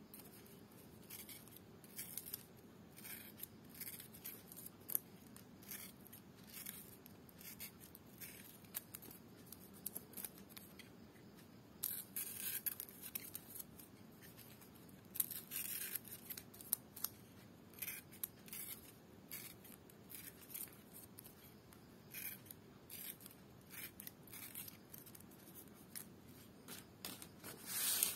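Small scissors snipping notches into dried lontar palm leaf (ental), with quick, irregular clusters of crisp snips. A louder scrape comes near the end.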